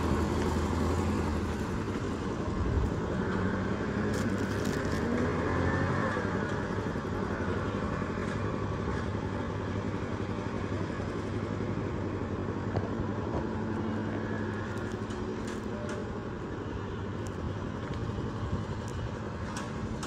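Steady street traffic noise: a vehicle engine running nearby, its low hum slowly getting quieter, with a few faint clicks.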